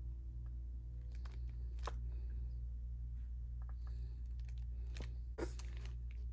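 A few light, sharp taps and clicks, the loudest near the end, over a steady low hum.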